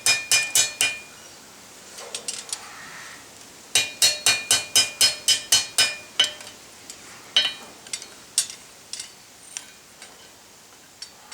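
Hand hammer striking hot 12 mm rebar on an anvil, light blows knocking the edges off the twisted bar, each strike ringing. A quick run of strikes opens, then a run of about ten blows at about five a second from about four to six seconds in, then lighter scattered taps.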